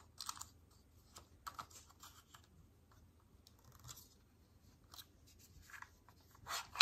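Faint clicks and scratchy rubbing of a plastic car phone holder being handled, its arm and ball joint twisted and adjusted by hand, with a louder scrape near the end.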